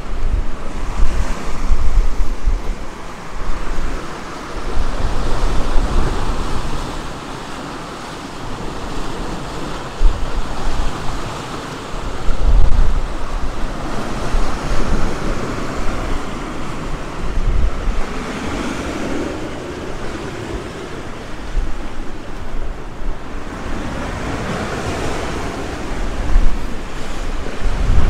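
Sea surf breaking and washing up on a sandy beach, rising and falling in swells, with gusts of wind buffeting the microphone.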